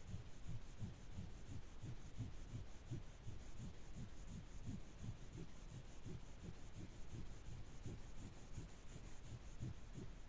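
Rhythmic back-and-forth rubbing on the metal wrench by hand, about three to four strokes a second, as in scrubbing or polishing it.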